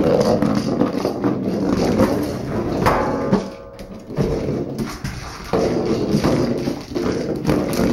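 Hard plastic treat-dispensing ball rolling and knocking across a vinyl floor as a dog pushes it with her nose, the treats inside rattling. It goes quieter briefly a little under halfway, then starts up again.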